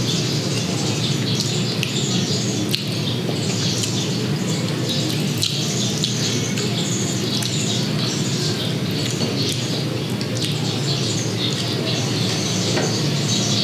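Birds chirping over a steady low hum, with a few faint clicks from the food being pulled apart by hand.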